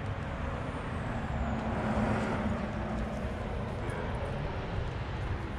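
A motor vehicle rumbles by. The rumble swells about two seconds in and then eases off.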